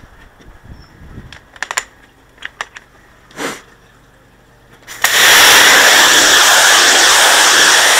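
A few light knocks and a short whoosh. Then, about five seconds in, a pressure washer jet starts suddenly and sprays water steadily onto porcelain patio slabs with a loud hiss.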